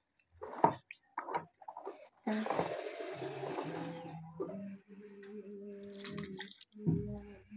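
Water splashing and sloshing in a plastic tub as hands move through it among live fish, with a few short splashes in the first second and a half, then a longer stretch of sloshing. A steady low hum runs under the second half.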